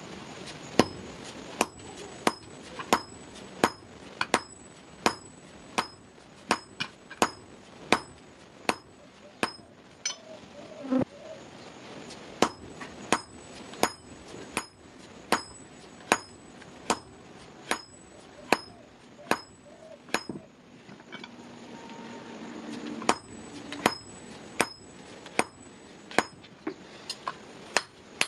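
Hammer blows on red-hot steel on a blacksmith's anvil, drawing out the bar. The blows are evenly paced, about three every two seconds, each with a short bright ring, and they stop briefly twice.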